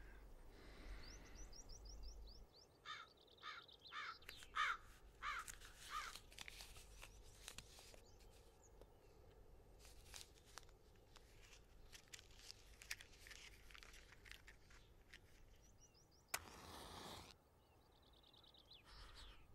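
Birds calling quietly, with a run of about six loud calls between about three and six seconds in. About sixteen seconds in, a match is struck on its box: a sharp strike, then about a second of hissing as it flares.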